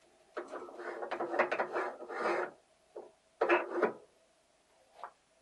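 Metal parts of a small fish-feed pelleting machine rubbing and grating as it is handled and its belt pulley turned by hand: a scraping stretch of about two seconds, then a few shorter scrapes.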